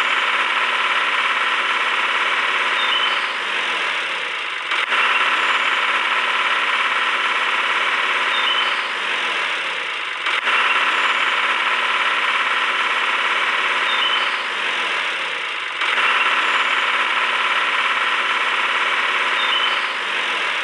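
A motor running steadily, its sound starting over in the same pattern about every five and a half seconds, like a looped engine sound.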